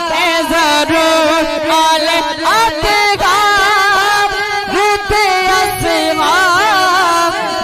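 A man singing a Punjabi naat, drawing out a long melismatic phrase in held notes that waver and slide in pitch, over a steady lower drone.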